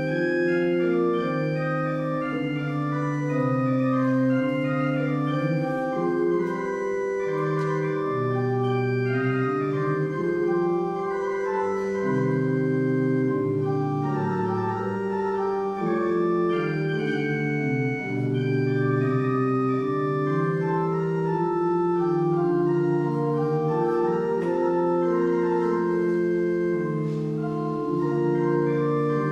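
Organ music: slow, sustained chords with several voices moving beneath held notes, played at an even, steady volume.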